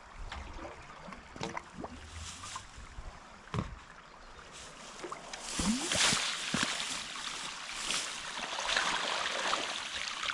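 Water splashing and sloshing as a siphon tube is worked in an irrigation ditch to prime it, with a few short knocks; the splashing grows louder and busier about halfway through.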